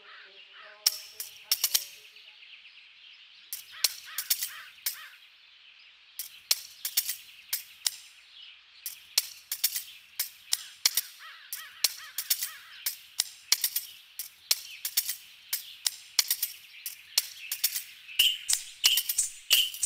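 Outdoor animal ambience: a steady high hiss with many short, sharp calls scattered throughout, coming thicker toward the end, where a bird chirps about twice a second.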